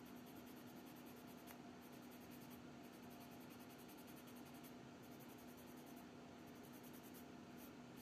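Faint rapid scratching of a small sanding sponge rubbed in quick short strokes over a plastic model-kit helmet, over a low steady hum.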